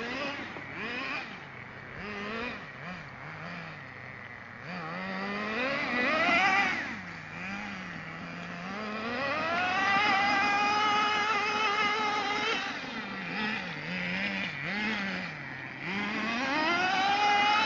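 Two-stroke nitro glow engine of a 2WD radio-controlled truck, idling with a wavering pitch and then revving up three times to a high, held pitch before dropping back to idle.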